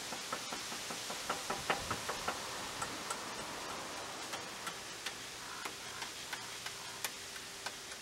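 Bare fingers tapping a Meroca M4 hydraulic disc brake's caliper and hose in light, irregular clicks, most tightly bunched in the first couple of seconds. The tapping shakes trapped air bubbles up the hose toward the lever.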